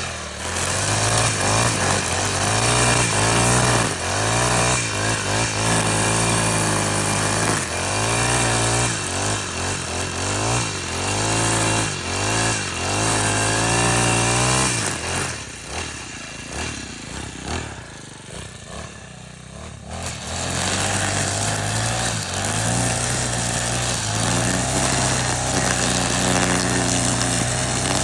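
Four-stroke brush cutter engine running, its pitch rising and falling again and again as the throttle is worked. About two-thirds of the way through, it drops to a quieter idle for a few seconds, then runs steadily at higher speed again.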